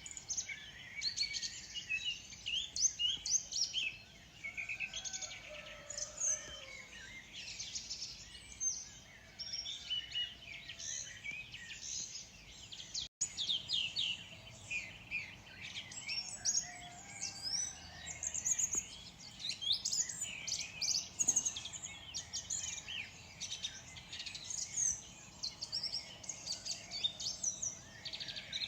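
Morning birdsong from many birds at once: dense, overlapping chirps, trills and short whistled calls, with a split-second break in the sound about 13 seconds in.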